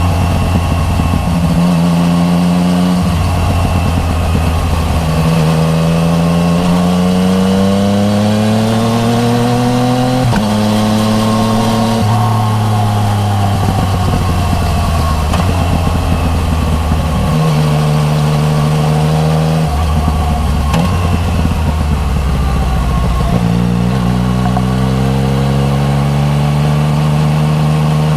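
Yamaha MT-09 Tracer's three-cylinder engine through an Akrapovic Racing Line titanium full exhaust, heard onboard while riding. It pulls up through the revs and shifts gear several times, the pitch climbing and then dropping at each change, with stretches of steady throttle between.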